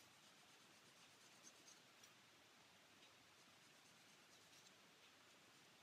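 Very faint scratchy rubbing of a small plastic model part being sanded by hand to smooth a bulge and soften a curve, with a few light ticks; otherwise near silence.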